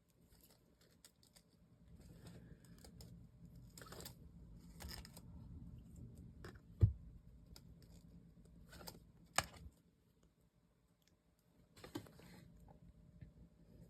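Hands handling a card box and its packaging: scattered rustles and light clicks, with a low thump about halfway through and a sharp click a couple of seconds later.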